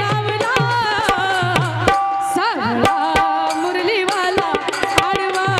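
A woman singing a Marathi gavlan through a microphone and PA, her voice wavering and bending between notes, over a steady hand-drum rhythm of about three to four strokes a second. The drum thins out in the middle and comes back near the end.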